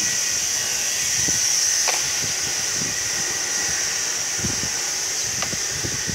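Vegetables sizzling in a steel wok: a steady high hiss, with a few faint knocks.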